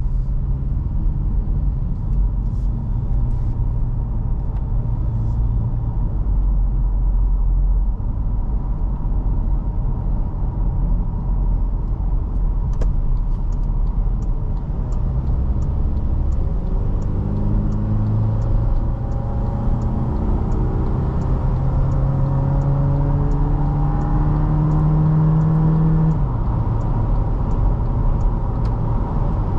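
Toyota Fortuner 2.7 naturally aspirated petrol engine and road rumble while driving. About halfway through, the engine note climbs in several rising stretches as the SUV accelerates through the gears, then drops suddenly a few seconds before the end. A faint regular ticking, about twice a second, runs through the second half.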